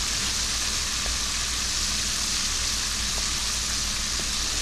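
Frog legs frying in hot oil: a steady sizzle with a few light pops.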